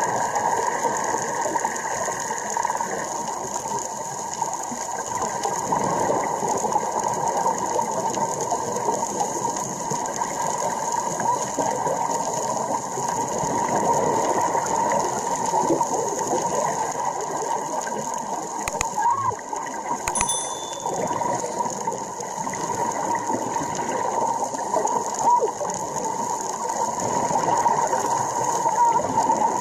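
Underwater ambience: a steady, dense crackling with hiss, with a few brief clicks about two-thirds of the way through.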